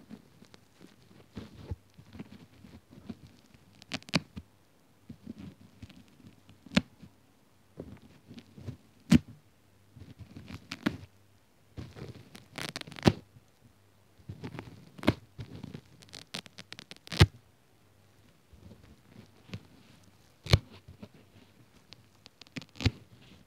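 Foam sponge covering a microphone being pinched, picked and torn apart by fingers close up: irregular scratchy rustling broken by sharp pops and clicks, several of them loud.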